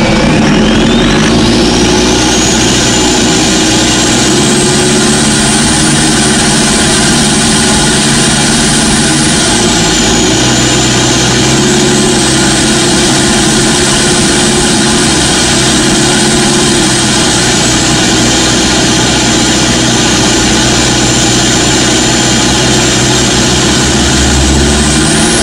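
Toyota Innova's 1KD four-cylinder turbodiesel under hard acceleration, with a loud, high turbo whistle. The whistle rises steeply over the first couple of seconds, holds high, dips briefly about ten seconds in, then settles a little lower and climbs again near the end.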